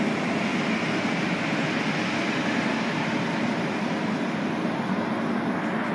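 Steady hiss and hum inside a Montreal Metro Azur train car at a station stop, with no distinct clunks or tones standing out.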